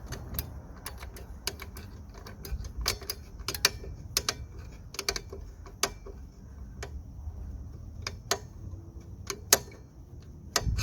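Rear drum brake shoe adjuster being turned with a tool, giving irregular sharp metallic clicks as the brake shoe is brought out.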